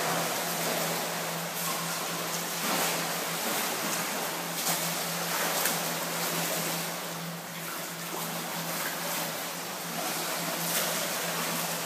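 A swimmer splashing in an indoor pool, pushing off the wall and swimming away down the lane with irregular splashes of water, over a steady low hum.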